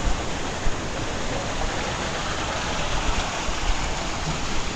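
Steady rush of falling and splashing water, an even hiss with no break.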